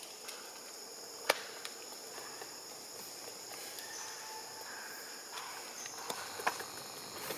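Steady high-pitched insect chorus of two thin, even tones, with a single sharp click about a second in.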